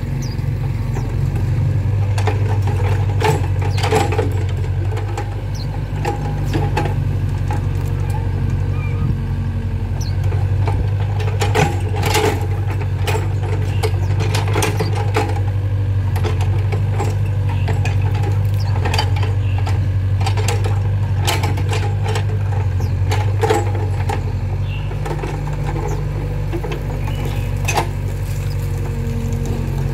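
Volvo EC55B mini excavator's diesel engine running steadily while it works, with frequent knocks and clanks from the bucket and boom as it scoops and drops wet mud.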